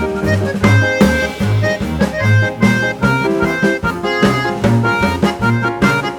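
Background music: an upbeat instrumental track with a steady beat, bass and reedy held notes.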